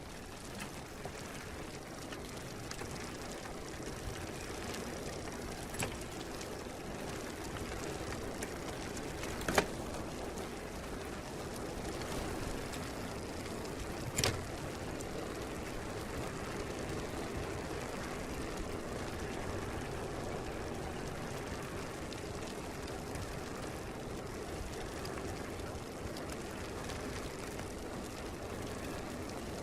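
Bicycle being ridden: a steady rolling noise of tyres and drivetrain, with two sharp clicks, about ten and fourteen seconds in.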